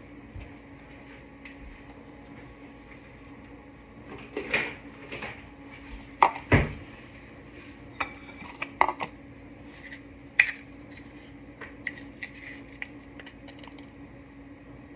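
Scattered clinks and knocks of a spoon, a spice container and a small dish as cumin is put into a bowl, with a few sharper knocks about six seconds in. A steady low hum runs underneath.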